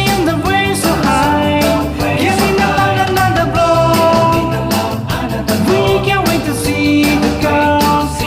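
Background music: an upbeat rock song with drums and a melodic line.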